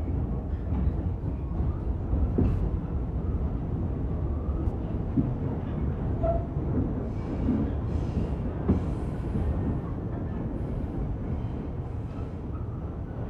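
An R46 New York subway car heard from inside while it runs along the track: a steady low rumble of wheels and running gear, with scattered short knocks and clanks and a few passing stretches of higher hiss.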